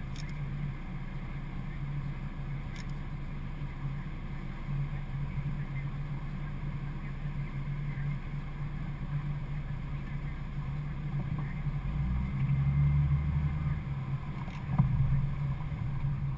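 Steady low hum with a few faint clicks, and a deeper rumble that swells about twelve seconds in and fades within about two seconds.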